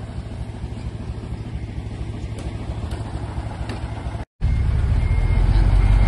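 Heavy dump truck's diesel engine running with a steady low rumble. The sound drops out for a moment a little past four seconds in and comes back louder and deeper.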